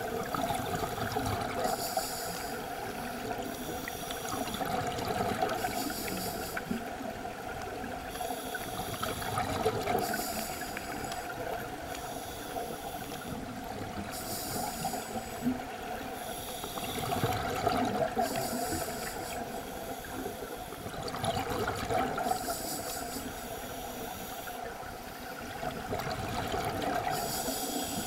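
Scuba regulator breathing heard underwater: a hissing inhalation returning every couple of seconds, alternating with rough bubbling exhalations.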